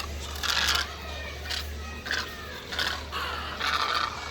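Flamingos calling: a run of short, harsh, honking calls, several a second, some with a falling pitch. It is the birds' clamour for food.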